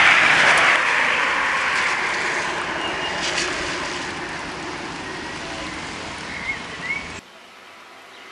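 Tesla Roadster electric sports car passing at speed with no engine note, only a hiss of tyres on damp tarmac that fades as it drives away. Two short chirps come near the end, then the sound drops away abruptly.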